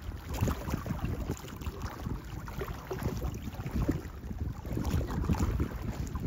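Wind rumbling and buffeting on the microphone in uneven gusts, over small waves splashing on the lake's choppy surface.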